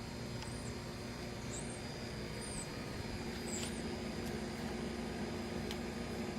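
Steady outdoor background hum with a thin high tone, and a few faint, short high chirps in the first half.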